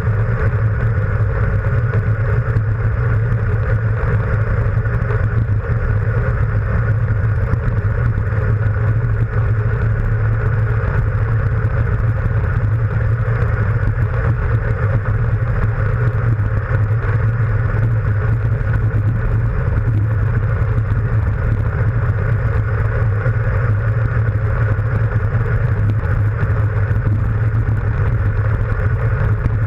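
Steady, loud wind rush and low rumble buffeting a handlebar-mounted action camera as a road bicycle descends at speed.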